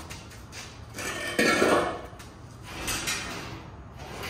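Metal clanking and scraping in a few drawn-out bursts, the loudest a little over a second in, as heavy steel is shifted about.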